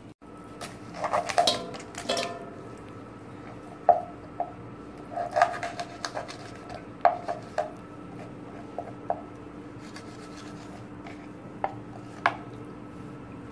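A kitchen knife chopping and scraping on a plastic cutting board as stinging catfish are cut up: irregular sharp knocks, a quick flurry in the first two seconds, then single knocks every second or so. A faint steady hum runs underneath.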